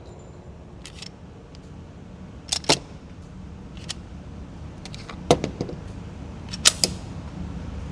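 Sharp metallic clicks and clacks of a pistol being handled, mostly in close pairs a couple of seconds apart.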